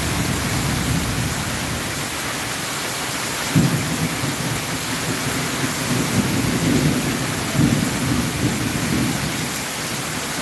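Heavy downpour hissing steadily on the road and pavement. Low rumbling comes in about three and a half seconds in and swells again near eight seconds.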